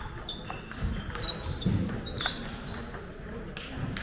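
Table tennis rally: the ball clicking off the bats and the table in a quick series, with shoes squeaking briefly on the hall floor.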